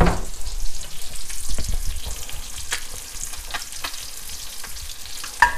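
Butter melting and sizzling in a hot cast-iron skillet while a wooden spatula pushes it around, with scattered light scrapes and taps against the pan.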